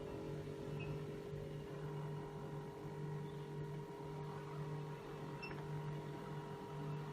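Built-in printer of a HY-3300 hematology analyzer running as it prints a QC graph: a steady motor whine with a low hum that pulses on and off.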